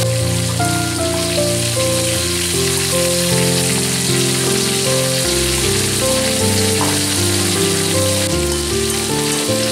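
Background music playing a melody of steady notes, over ground spice paste sizzling as it fries in oil in a small wok and is stirred with a spatula.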